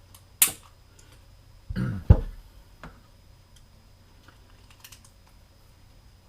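Handling noise from a 9mm semi-automatic pistol: a sharp click, then a heavier knock with a low thump about two seconds in, and a few fainter clicks after.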